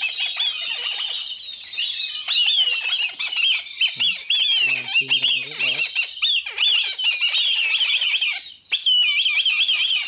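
A crowd of young black kites calling all at once: many high-pitched, wavering squeals overlapping into a loud, continuous din, with a brief lull about eight and a half seconds in.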